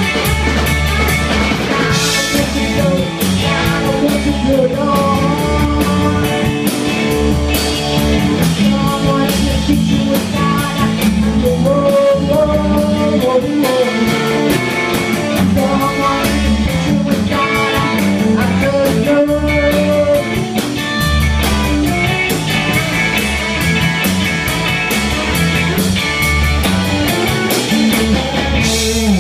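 A garage-punk band playing live and loud: electric guitar, bass and a drum kit, with singing.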